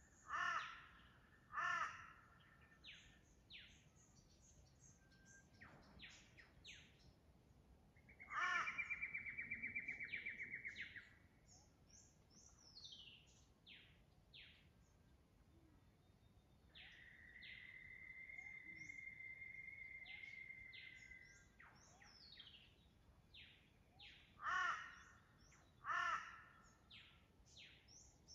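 Dawn chorus of forest birds: many short high chirps and whistles, with two loud calls in quick succession near the start and again near the end. A fast pulsing trill comes in about 8 seconds in and lasts about 3 seconds, and a long even trill runs from about 17 to 21 seconds.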